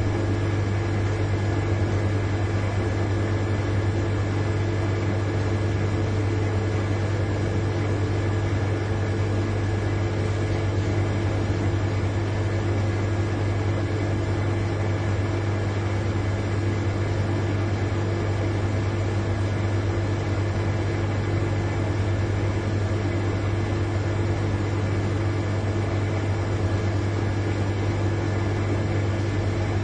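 Large refrigerator's compressor running with a steady, unchanging low hum, with a few fainter higher tones held over it.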